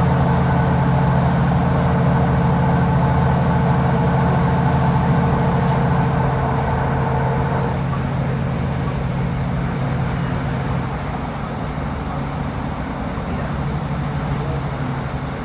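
Cabin noise of a Class 156 diesel multiple unit running at speed: a steady drone from its underfloor diesel engine with a higher whine on top. The whine stops about halfway through and the drone weakens a few seconds later, leaving a rougher running rumble.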